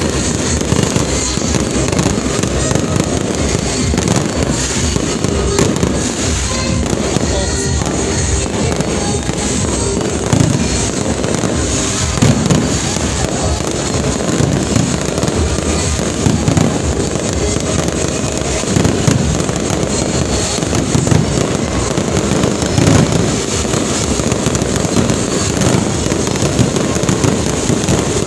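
Fireworks display going off continuously, a dense run of bangs and crackles with no pauses, with music playing along.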